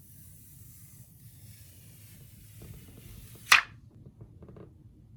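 Faint handling clicks over a low hiss, with one loud, sharp snap about three and a half seconds in.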